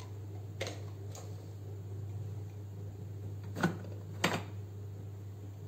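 A few light knocks of plastic popsicle and kulfi moulds being handled and set down on a kitchen cupboard shelf, the two near the middle the clearest, over a low steady hum.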